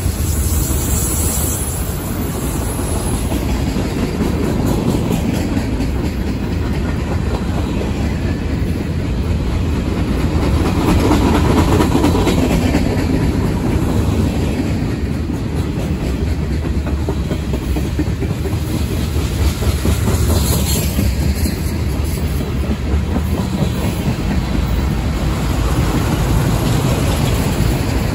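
Freight train cars rolling steadily past close by: a continuous rumble of steel wheels on rail with a clickety-clack as the wheel sets cross rail joints.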